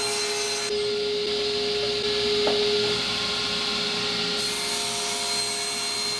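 A power saw runs with a steady motor whine. From about a second in, it cuts into a wooden board for a few seconds, adding a hissing cutting noise, then runs on without load.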